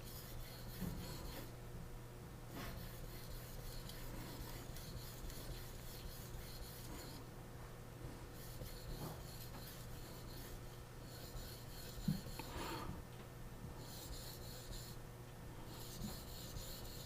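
Steel knife blade stroked back and forth over a Japanese natural whetstone: a faint, repeated rasping scrape that pauses now and then between runs of strokes.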